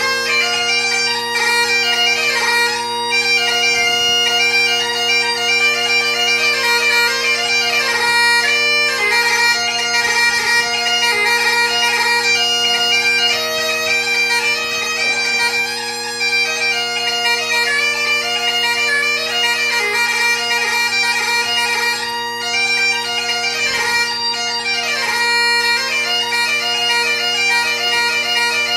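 Solo Highland bagpipes playing a tune: the steady drone holds underneath while the chanter plays a melody with quick note changes and grace notes.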